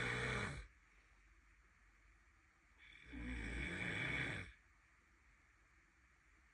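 A person snoring in slow, regular cycles. One snore ends about half a second in, and another lasts about a second and a half in the middle, with quiet gaps between them.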